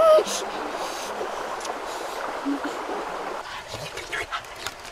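Steady rush of a flowing stream, which drops in level about three and a half seconds in, with a few faint clicks after. A short vocal exclamation sounds at the very start.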